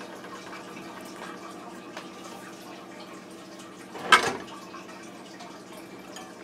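Seared steak being set with tongs into a glass baking dish of raw carrots and potatoes: a faint steady kitchen hum, then one brief louder clatter about four seconds in.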